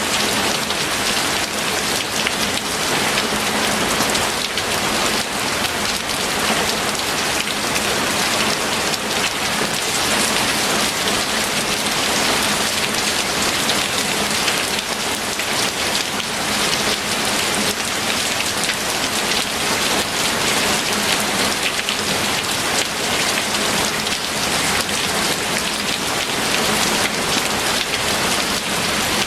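Steady rain falling, a dense, even hiss of countless drops that holds constant throughout.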